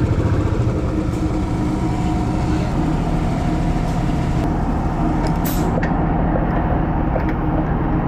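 Royal Enfield motorcycle running steadily on the road, with a short sharp hiss about five and a half seconds in.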